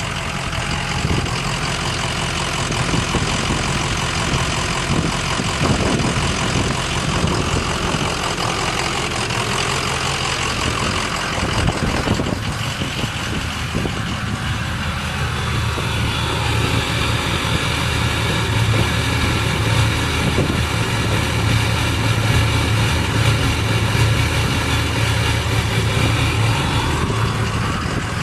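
Ford 6.0 Powerstroke V8 turbodiesel idling rough, with a lope and miss from a bad injector. The engine grows louder in its low hum after about sixteen seconds.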